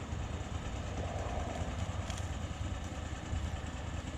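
An engine idling steadily with a low hum.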